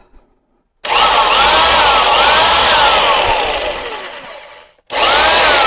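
Dong Cheng 9.2-amp corded SDS-Plus rotary hammer drill running in two bursts, the motor speeding up and slowing down as the trigger is worked. It winds down and stops near the middle, then starts up again about a second later.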